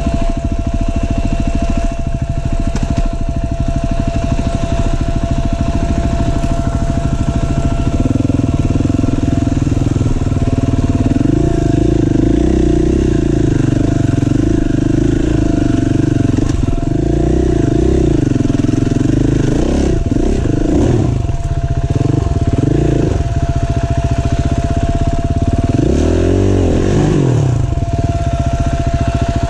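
KTM EXC-F four-stroke single-cylinder dirt bike engine under throttle on a trail ride. Its pitch rises and falls again and again, most in the second half, as the rider works the throttle up a steep dirt climb.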